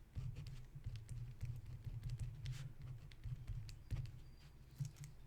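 Faint, irregular light clicks and taps from writing or typing at a computer, over a low steady hum.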